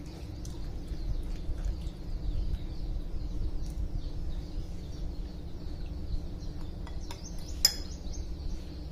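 Tamarind and tomato pulp being squeezed by hand through a steel mesh strainer, wet squishing against the mesh, with birds chirping in the background throughout. A sharp clink near the end as the strainer is lifted off the bowl.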